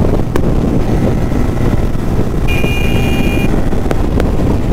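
Bajaj Pulsar N250's 249 cc single-cylinder oil-cooled engine running steadily at a cruise of about 100 km/h, with wind rushing over the microphone. About halfway through, a high beep sounds for about a second.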